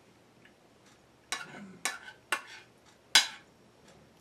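A metal spoon clinking and scraping against a plate while scooping up food: four sharp strokes, the loudest about three seconds in.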